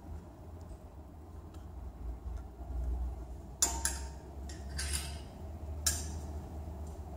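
Hangers clicking and scraping on a metal clothes rail as garments are pushed along it, with several sharp clicks in the second half over a low steady rumble.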